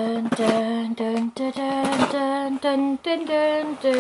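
A woman singing a tune to herself in steady held notes that step up and down, with a few light clicks from handling the packaging.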